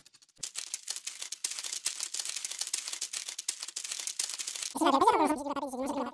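Rapid, dense clicking and tapping: added sound effects for crab legs skittering across a hard, sandy floor. About a second and a half before the end, a louder wavering, pitched squeal comes in over it.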